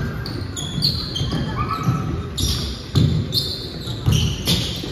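Basketball game in a large gym: sneakers squeaking on the hardwood court and a basketball bouncing as players run the floor, with sharp thuds about three and four seconds in and voices in the background.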